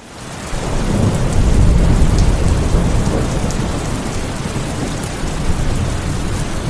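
Steady heavy rain with a deep rumble of thunder, fading in over the first half second and loudest about two seconds in.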